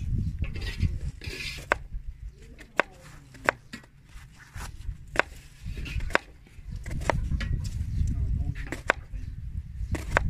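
Kitchen knife slicing a red onion on a plastic cutting board: sharp, irregular knocks of the blade on the board, about one a second, over a low rumble.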